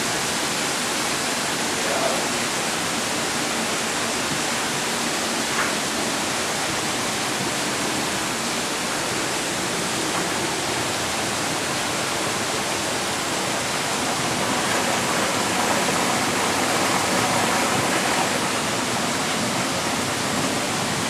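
Water rushing steadily at the mill, a constant splashing flow like a small waterfall, with a couple of faint knocks in the first few seconds.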